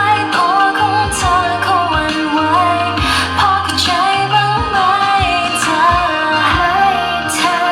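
T-pop song played loud over a concert PA, a female vocal melody over a steady bass and beat.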